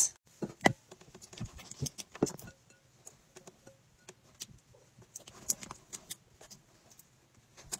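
Glue, blue glitter paint and scent being stirred together in a cup for slime, giving irregular soft clicks and taps.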